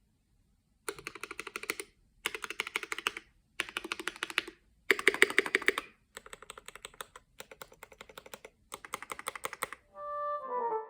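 Keychron K8 Pro mechanical keyboard with Gateron Red linear switches and lubed stabilizers being typed on in seven quick bursts of keystrokes, each about a second long with short pauses between; the fourth burst is the loudest. Music starts near the end.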